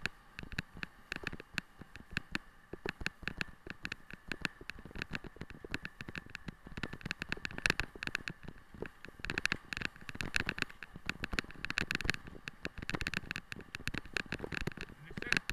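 Dense, irregular rattling and clicking from a dog-drawn rig running over a rough track, with a faint steady high whine underneath.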